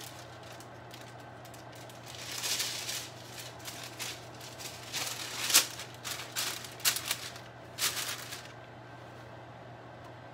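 Kitchen handling noises at a stove: several short bursts of hissing, crinkly noise with a sharp click in the middle, over a steady low hum.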